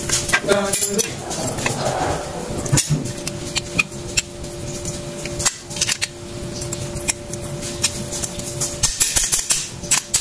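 Steel drum-brake shoes and their hardware (return springs, lever, adjuster) clinking and clicking together as they are handled and fitted by hand, in irregular light metallic knocks.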